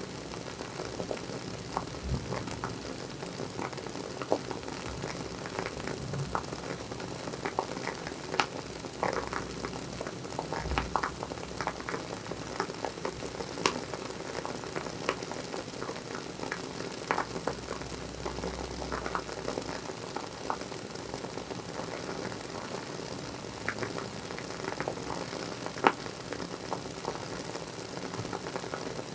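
Wooden wick of a WoodWick candle crackling as it burns: irregular small pops and snaps over a faint steady hiss, with one sharper pop near the end.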